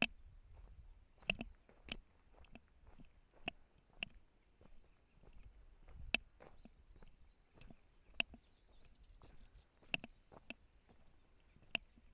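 A hiker's footsteps on a trail: separate steps at an uneven pace, one every half second to two seconds. A high, rapid trill runs through the middle stretch.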